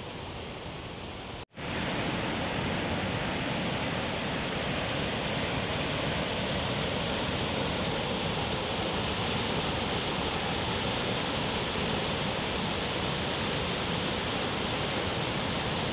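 Fast white water of a rocky fell stream rushing over small waterfalls and rapids, a steady even rush. It drops out for an instant about one and a half seconds in, then comes back a little louder.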